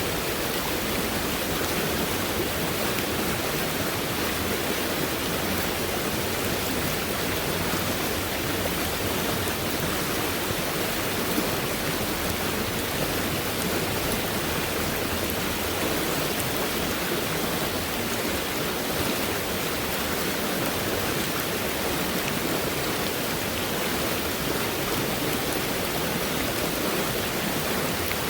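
Fast-moving stream, running high after heavy rainfall: a steady, even rush of water with no pauses.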